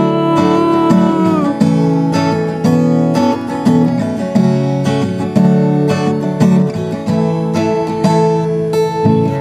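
Acoustic guitar strummed in a steady rhythm of chords. A held sung note carries over and ends about a second and a half in, leaving the guitar alone.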